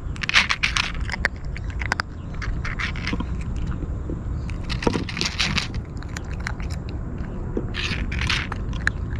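Kitten crunching dry cat kibble close to the microphone, in several bursts of rapid crunching a second or two apart, over a steady low rumble.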